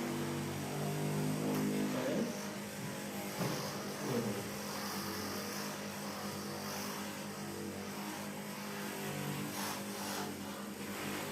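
A steady low hum, with a few faint brief sounds in the first four seconds.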